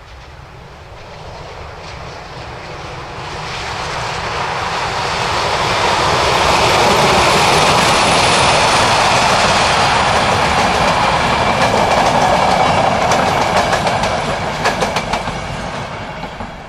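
A ČSD class 754 'brejlovec' diesel-electric locomotive passes hauling a train of classic passenger coaches. Its engine and the train's noise swell to a loud peak midway. Near the end the coach wheels clatter over the rail joints as the train draws away.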